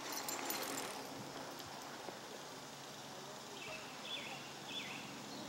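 Quiet outdoor street ambience with three short, high, falling chirps about half a second apart in the second half.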